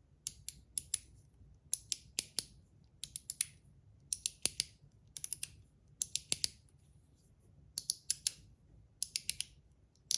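Zirconium One Pal haptic slider clicking as it is slid through its spring-and-ball detents. The clicks are sharp and high and come in quick clusters of three to five, about every second and a half.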